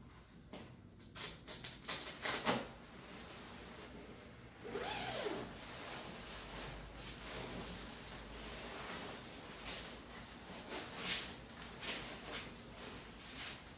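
Rustling and swishing of a down sleeping bag's Pertex Quantum Pro nylon shell and a puffy down jacket as a person opens the bag and climbs out. There is a run of short rustles about a second in, then steadier handling from about five seconds in as the bag is smoothed flat.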